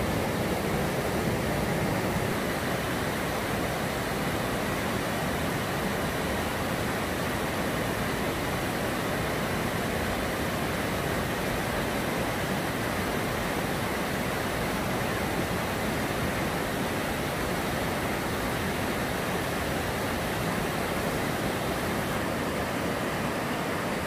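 Mountain stream rushing over and between boulders in small rapids: a steady, even rush of water.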